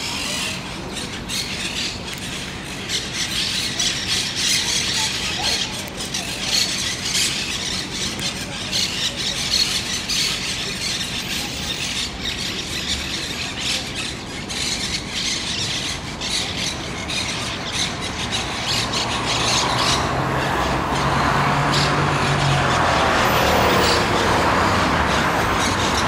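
Many birds calling rapidly and continuously from the palm trees. About three-quarters of the way through, a passing vehicle's engine rises and covers the calls.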